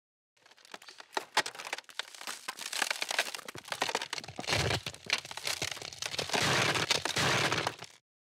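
Crunching, crackling sound effect of a snow mound breaking apart: a dense run of sharp cracks and crinkles that stops suddenly near the end.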